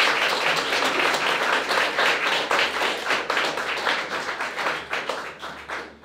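Audience applauding at the end of a speech, the clapping dying away near the end.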